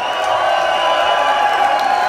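Rock concert crowd cheering and whooping, with a held note from the band sustaining underneath.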